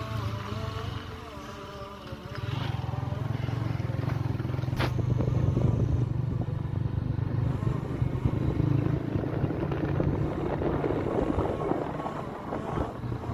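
Vehicle engine running on the move, with road and wind noise. It grows louder about two seconds in, and there is a single sharp click about five seconds in.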